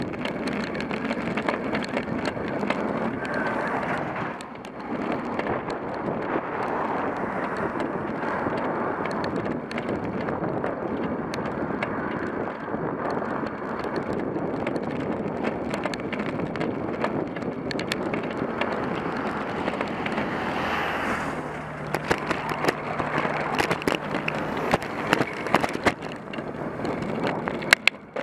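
Wind buffeting the bike-mounted microphone and riding noise as a bicycle climbs. About twenty seconds in, a tow truck overtakes very close and its noise swells sharply. A low steady engine drone follows as it pulls ahead, with scattered clicks near the end.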